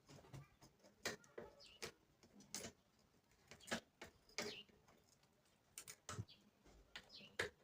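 Faint, scattered light clicks and taps, about eight of them spread irregularly, from handling the speaker and soldering iron while desoldering the speaker's lead wire.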